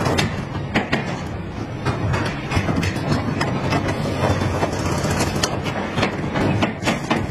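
Car body assembly line din: a steady machinery drone with frequent irregular metallic clicks and clanks from tooling and fixtures.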